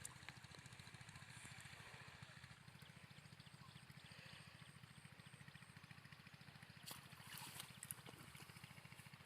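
Near silence: a faint steady low hum, with a few faint clicks about seven to eight seconds in.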